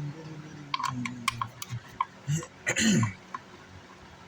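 Several sharp clicks and taps of screws and tools being handled on a car amplifier's metal chassis during disassembly. A man's low murmur trails off at the start, and a short grunt falling in pitch comes about three seconds in.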